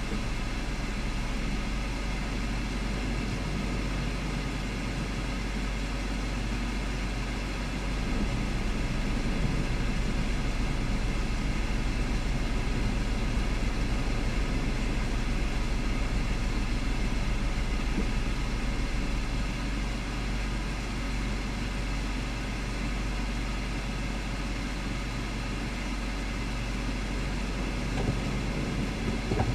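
Steady low rumble and hiss with constant humming tones from a vehicle running while parked, a little louder from about eight seconds in to about twenty.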